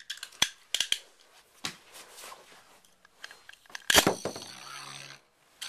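Scorpio WD145B Metal Fight Beyblade: a few sharp clicks as it is readied, then a loud launch snap about four seconds in, followed by the top spinning on a flat surface with a steady hum.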